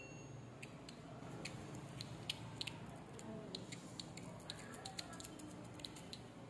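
Faint, irregular clicks and ticks of a large cicada (tonggeret) being handled between the fingers, over a low steady hum.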